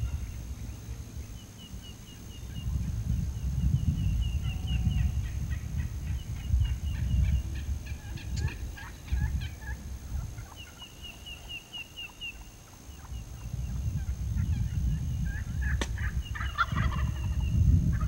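Wild turkey gobblers gobbling, with one gobble about eight seconds in and a louder one about sixteen seconds in, over wind rumbling on the microphone.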